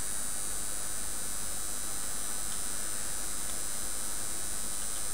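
Steady electrical hum under a constant high hiss, with a few faint small ticks.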